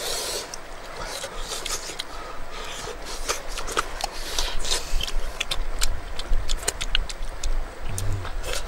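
Close, irregular clicks, crackles and rustles of grilled fish being picked apart by hand and eaten, with chewing and lip smacks.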